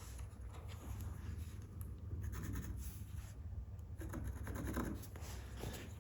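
Paintbrush being stroked across a wooden door, a soft, irregular scratching of bristles on the surface, over a low steady hum.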